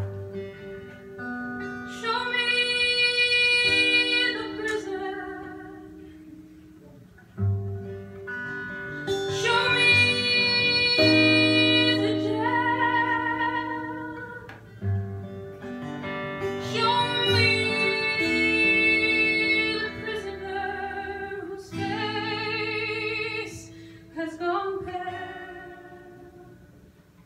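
A woman sings a slow song to her own acoustic guitar, in sung phrases of a few seconds with vibrato on the held notes, with guitar alone between the phrases.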